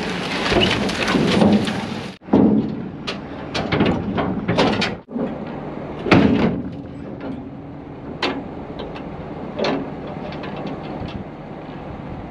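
An engine running with a string of sharp knocks and clunks over it. The sound breaks off abruptly about two and five seconds in, and after the second break it is quieter.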